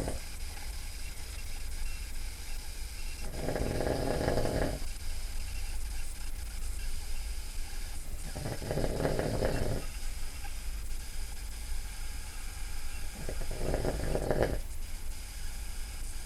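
A man snoring loudly in deep sleep: three snores about five seconds apart, each lasting about a second and a half, over a low steady hum.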